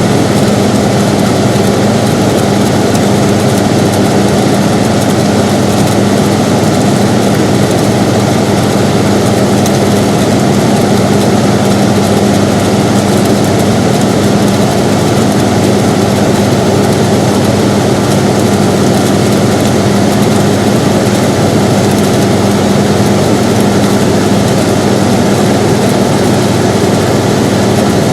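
Air conditioner running: a steady, unchanging rush of fan air over a constant low hum.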